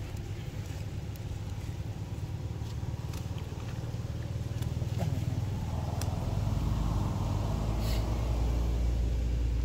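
A motor vehicle's engine running steadily, growing louder about six seconds in, with a few faint clicks.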